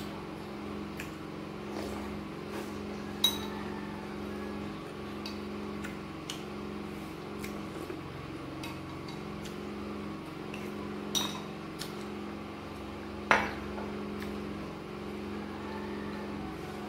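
A metal spoon clinks against a glass bowl: scattered light taps, with three sharper clinks about three, eleven and thirteen seconds in. A steady low hum runs underneath.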